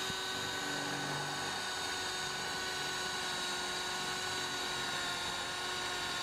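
Electric drill running steadily under load as it pre-drills holes through a stack of ribbed steel wainscoting panels, its pitch sagging slightly as it cuts.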